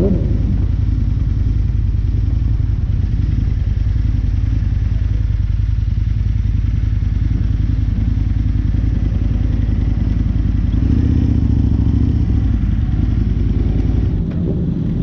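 Sport bike engine running steadily at low speed, picked up close by a camera mounted on the bike; the sound eases off slightly near the end.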